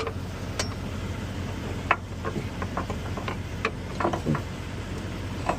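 Scattered metallic clicks and knocks of hand tools working on a truck's cab mount bushing, about a dozen at uneven intervals, over a steady low hum.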